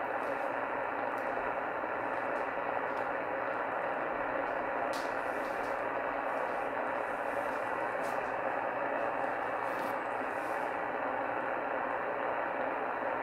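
Steady static hiss from a shortwave receiver's speaker, tuned to CB channel 38 lower sideband at 27.385 MHz, with a few faint clicks. No skip signal stands out.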